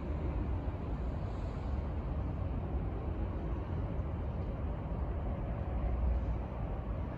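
Steady low rumble of distant road traffic, with wind buffeting the microphone.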